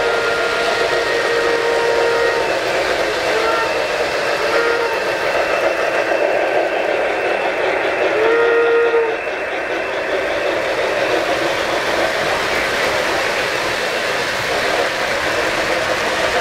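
Model steam locomotive's electronic sound-system whistle: one long blast that stops a couple of seconds in, two short toots soon after, and another toot about halfway through. Under it, the steady rumble of several model trains running on the layout's track.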